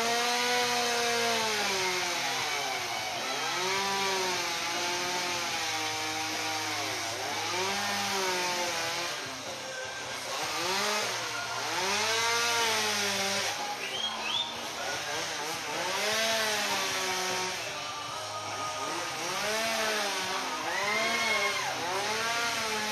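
Chainsaw carving a block of ice, its pitch rising and falling over and over, about every second or two.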